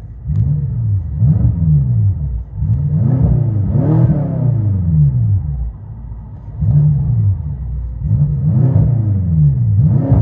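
A 2016 BMW M6's 4.4-litre twin-turbo V8, mufflers deleted, revved in a series of quick blips, each rising and falling back. It settles briefly toward idle around the middle, then blips again several times.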